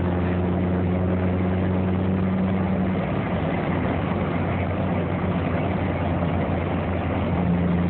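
Turbocharged Honda Civic four-cylinder engine idling steadily.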